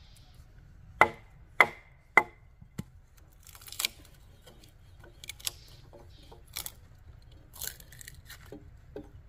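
Large knife chopping into a short piece of bamboo: three sharp strikes about half a second apart, then quieter cuts and scraping as the bamboo is shaved.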